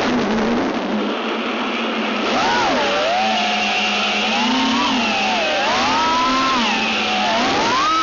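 Racing quadcopter's four ZMX V3 2206 2300 kV brushless motors spinning 5-inch DAL propellers: a whine whose pitch swings up and down again and again with the throttle. It sags low and quieter about a second in, then climbs back and swoops several more times.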